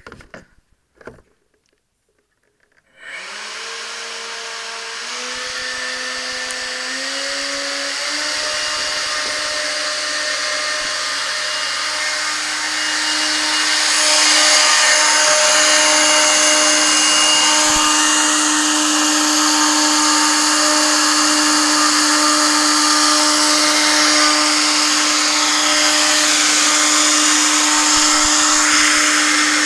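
Electric motor and propeller of a composite FPV/UAV model plane on a ground run-up: it starts about three seconds in, the pitch climbing in steps as the throttle is opened, then holds a steady whine. From about halfway it gets louder, with a strong rush of prop air that sounds like a jet engine.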